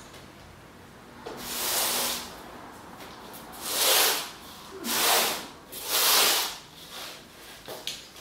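A painting tool working on the canvas: four hissing, rubbing strokes of about a second each, the last three the loudest.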